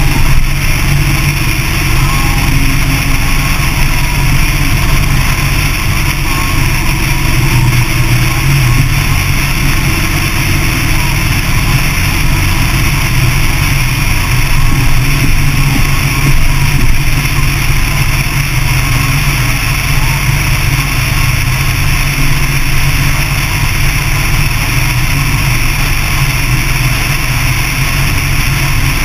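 Motorcycle running at steady highway cruising speed, its engine under a loud, even rush of wind that holds without change.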